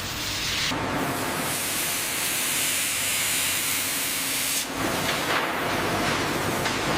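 A steady rushing hiss that changes abruptly about a second in and again just before five seconds.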